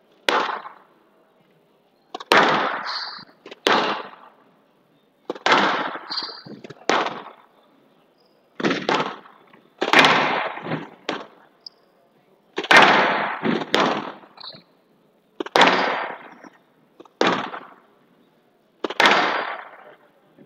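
A squash rally on a glass court: a squash ball hit back and forth by rackets and slapping off the walls, sharp hits with a short echo after each, about one a second.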